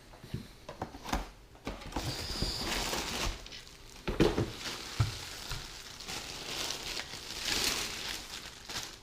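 A cardboard box being opened and its packaging rustled and crinkled, with a few knocks as the box and its contents are handled.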